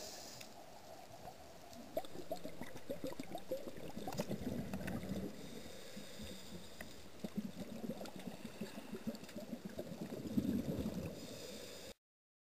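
Scuba divers' exhaled regulator bubbles gurgling and crackling underwater in irregular surges, cutting off abruptly near the end.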